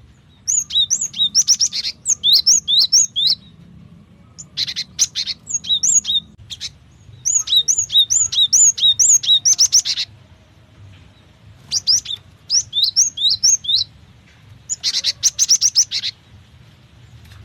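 Cinereous tit (gelatik batu) calling: five bouts of quick, high, repeated upswept notes mixed with short rapid buzzy runs, with brief pauses between bouts.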